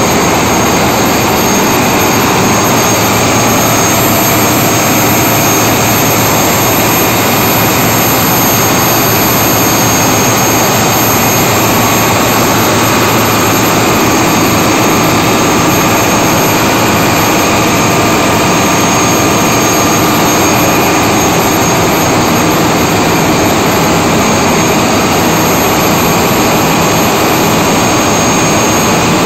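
Loud, steady din of diesel machinery running in a tug boat's engine room, an even dense noise with a low hum and a high whine held throughout.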